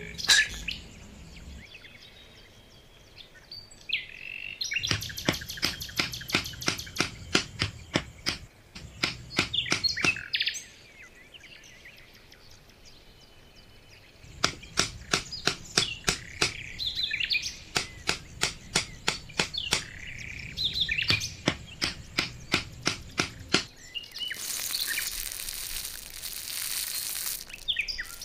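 Songbirds chirping, with two long runs of sharp taps at about three a second and a hiss near the end.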